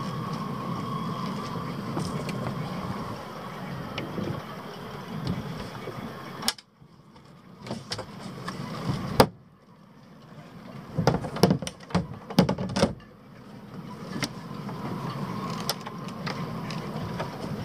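A hinged fibreglass deck hatch over the motor well being unlatched and lifted open. There are sharp clicks and clunks, the loudest about nine seconds in and a cluster of knocks a few seconds later, against a steady background hum.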